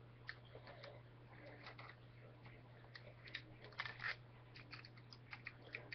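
Faint, scattered clicks and rattles of plastic Lego pieces being handled and moved, with a cluster of louder clicks about three to four seconds in, over a steady low hum.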